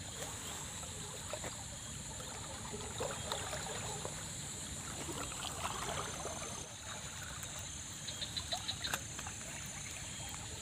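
Muddy floodwater flowing past a concrete bridge pillar: a steady rush with trickling, and scattered light clicks, including a quick run of ticks about eight seconds in.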